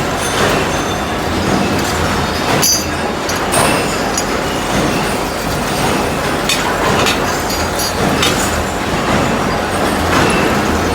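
Four-spindle drilling machine running while drilling scaffolding components: a steady mechanical din with a low hum and scattered sharp metallic clinks.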